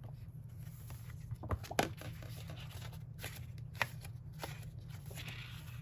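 Sticker book pages being turned and handled: soft paper rustles with a few sharp flicks and taps, the loudest a little under two seconds in and again near four seconds, over a steady low hum.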